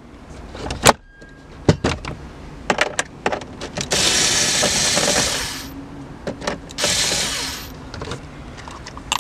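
Hand screwdriver work on a car's plastic dash trim: scattered sharp clicks and knocks of the tool and trim pieces. Two loud bursts of hissing noise come about four seconds in and about seven seconds in.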